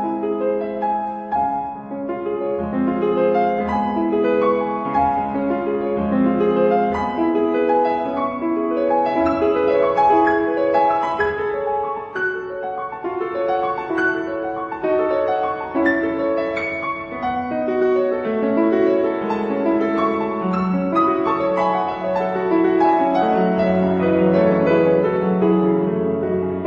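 Background piano music: a slow, gentle melody over sustained low notes.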